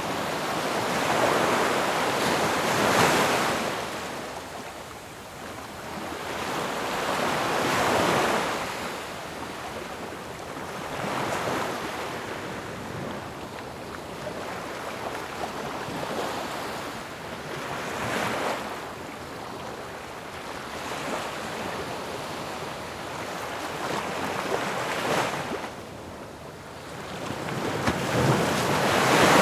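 Ocean waves breaking and washing in, one surge of surf every few seconds, the loudest near the start and at the end.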